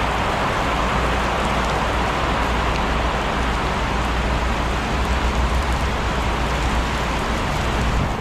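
Heavy rain pouring steadily, with a low rumble of wind underneath.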